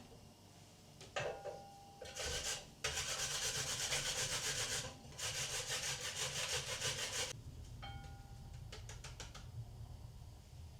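Raw pumpkin being grated by hand on a coarse grater: fast rasping strokes in two long runs with a short break between, then a few lighter strokes near the end.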